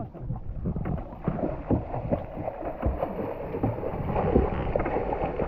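Sea water splashing and sloshing against a small boat, with wind buffeting the microphone; an uneven, choppy wash of noise with many small slaps.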